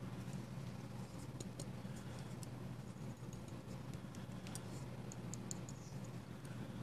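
Faint, scattered light clicks and ticks from a Cold Steel AD10 folding knife being handled, its blade knocking lightly in the frame, a noise the owner puts down to the blade stop pin not seating completely. A steady low hum runs underneath.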